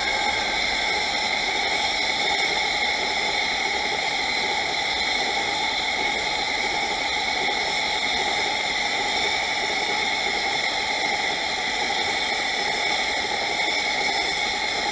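A freight train of empty flatcars rolling past, its wheels on the rails making a steady, even rushing hiss that begins to fade near the end.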